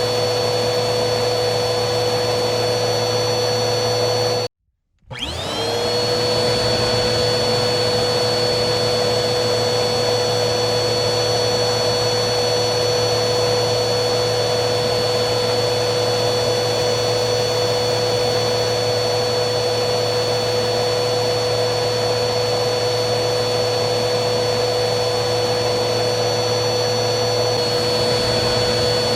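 Vacuum cleaner motor running steadily with a high whine over its airflow hiss. About four and a half seconds in the sound cuts out abruptly for about half a second, then the motor spins back up with a rising whine and settles at its steady pitch.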